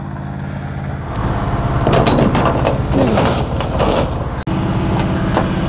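An old pickup truck's engine idling while it warms up, with a heavy steel chain clanking and its links rattling as it is dropped into the truck bed about two seconds in.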